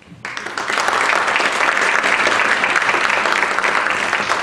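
Audience applauding, starting suddenly just after the start and building within about a second to steady, loud clapping.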